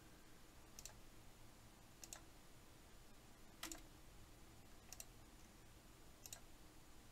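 Computer mouse clicking five times at an even pace, about once every second and a quarter, each click selecting one more shape in a CAD program; otherwise near silence.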